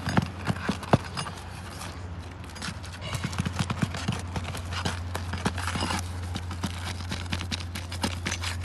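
Sharp knocks and taps of a roofing pry tool working under brittle asphalt shingles to break them loose and pull their nails: a few single strikes, then a quick run of knocks about three seconds in. A steady low hum runs behind.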